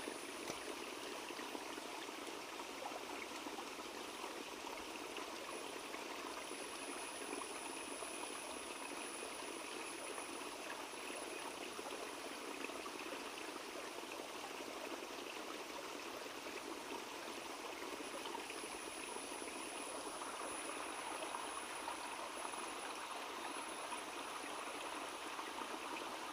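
Small forest stream flowing steadily, an even rush of water. A thin, high, steady tone sits above it and grows stronger and weaker in places.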